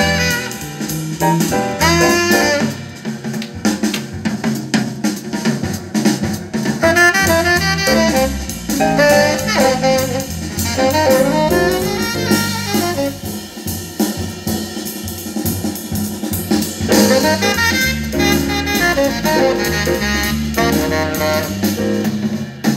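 Jazzy instrumental music with a drum kit and saxophone, played back through a pair of 1991 Infinity RS 1001 two-way bookshelf speakers as a listening test of their sound.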